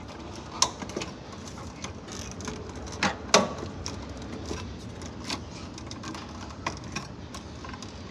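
Scattered small clicks and taps of electrical wires and wire nuts being handled and worked, with two louder clicks about three seconds in.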